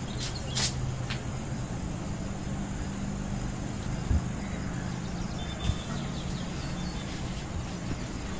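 Steady low mechanical hum, with a few light clicks in the first second and brief faint high chirps about halfway through.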